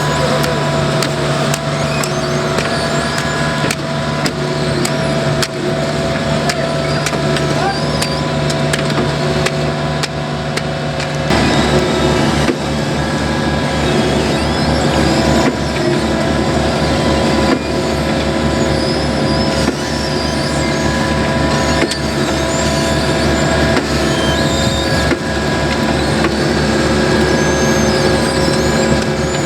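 Diesel engine of asphalt paving machinery running steadily with an even low pulse, its note changing abruptly about eleven seconds in.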